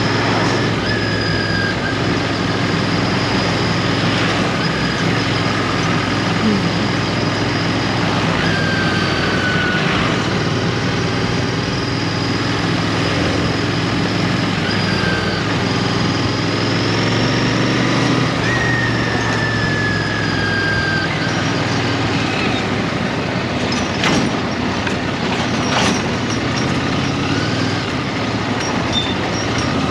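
Road traffic heard from a motorcycle ride: an engine running steadily with heavy vehicles such as trucks around, and high squealing tones that slide slowly down in pitch. There are two sharp clicks near the end.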